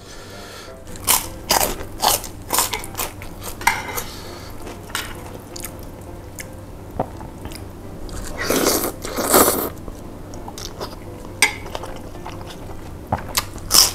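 Close-miked eating of chicken noodles: chewing with wet mouth clicks, then two louder slurps of noodles about eight and nine seconds in.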